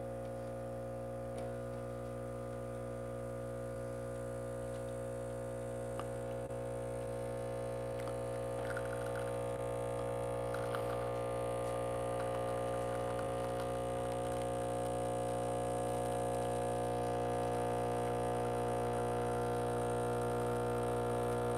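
Breville Barista Express espresso machine's vibratory pump running through a shot extraction: a steady hum that slowly grows louder as the espresso pours.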